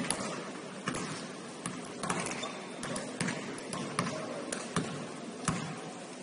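Basketball bouncing on the court during a game: sharp thuds at an uneven pace, about one or two a second.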